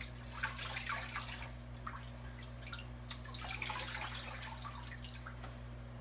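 Water dripping and trickling as a soaked piece of wool fabric is wrung out by hand, over a steady low hum.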